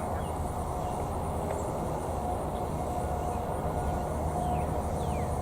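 A distant Federal Signal 2001 siren holds a steady tone that swells and fades every second or two. Birds chirp with short falling notes over a steady low rumble.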